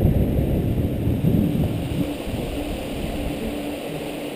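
Wind buffeting the microphone over the rush of water off the hulls of a Cat2Fold catamaran sailing fast, around 9 to 12 knots. The gusts are heaviest in the first two seconds, and a faint steady hum comes and goes underneath.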